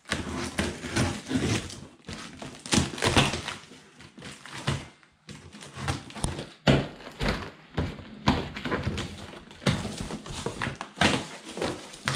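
Clear plastic packing tape on a cardboard box being slit and torn, and the stiff cardboard flaps being pried apart and pulled open, in an irregular run of scraping, crinkling and thumping noises.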